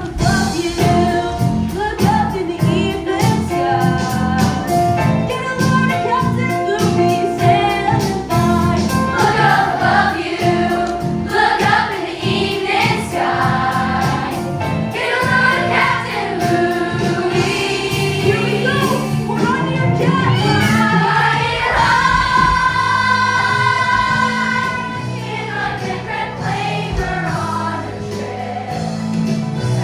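A young stage cast singing together in chorus over musical accompaniment with a steady beat.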